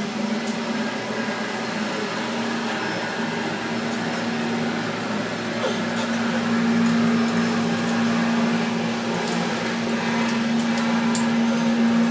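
Steady machine hum at one constant pitch, growing a little louder about halfway through, with a few light clicks and taps from parts being handled.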